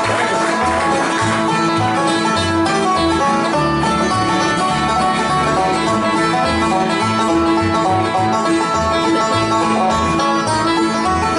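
Bluegrass band playing an instrumental passage: banjo picking over strummed guitar, with a line of bass notes below.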